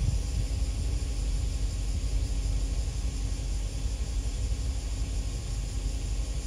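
Low, steady rumble with a faint hum from the cruise ship passing close by under its own power.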